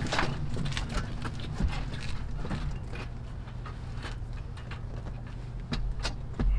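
Irregular knocks and clicks as a framed solar panel is handled and lifted against a sailboat's railing, with a heavier thump near the end, over a low steady rumble.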